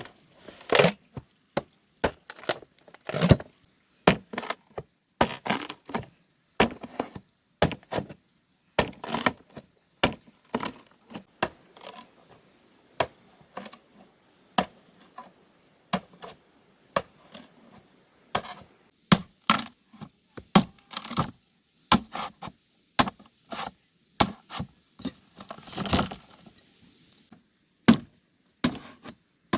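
Repeated chopping strikes of a blade into wood, sharp single blows coming one or two a second at an irregular pace.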